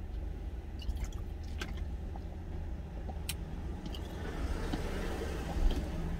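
A man gulping water from a plastic water bottle, with a few sharp clicks from the bottle, over a steady low rumble. A rushing noise near the end comes as he lowers the bottle.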